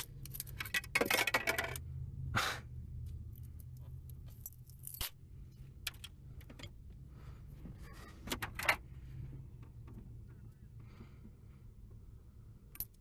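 Irregular clicks and small rattles of hands working on a car's steering column, plastic trim and small metal parts being handled. They are densest in the first couple of seconds and again about eight seconds in, over a low steady hum.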